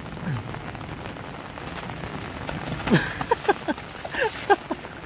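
Steady rain falling on a flooded dirt street. From about three seconds in, a run of sharp splashes as bare feet kick and stamp through the puddles.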